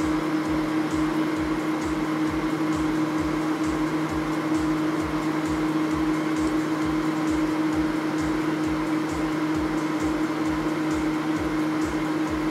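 Background music: a held, droning tone over a steady, quick low beat.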